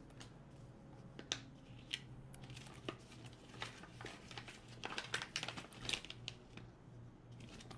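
Plastic packaging pouch crinkling as it is handled and opened by hand, in irregular faint crackles.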